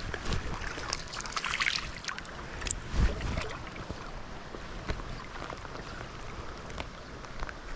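River water sloshing and splashing, with a few sharper splashes about a second and a half and three seconds in.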